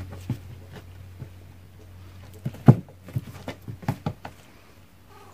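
Baby vervet monkeys scampering over a plastic storage box lid: a scatter of light taps and knocks from their hands and feet, thickest and loudest around the middle.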